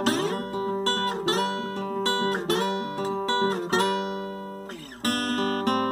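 A solo acoustic guitar fingerpicking an instrumental passage with no singing, with notes that slide in pitch near the start and again near the end.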